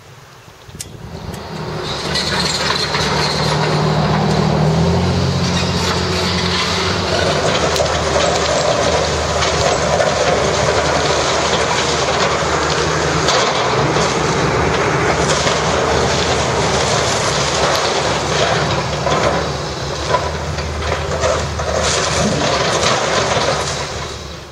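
Hitachi hydraulic excavator's diesel engine running under load as its bucket tears into a building wall, with constant crunching and clattering of breaking and falling debris. It starts about two seconds in and fades out near the end.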